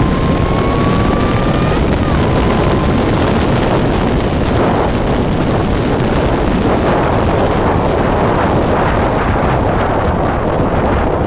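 Onboard sound of a vehicle at speed on a race track: heavy wind buffeting on the microphone over the engine, whose note climbs and then drops sharply about two seconds in, as at an upshift.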